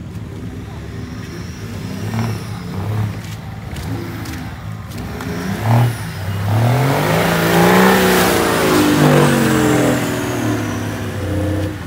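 Engine of a modified off-road 4x4 competition buggy driving through mud, running moderately at first, then revved hard about six seconds in. The pitch rises and then eases off slowly near the end.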